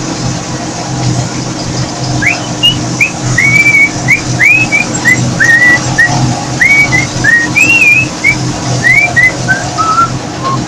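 A person whistling a tune, a string of short swooping notes that ends on a falling run, over the steady drone of a combine harvester heard from inside its cab.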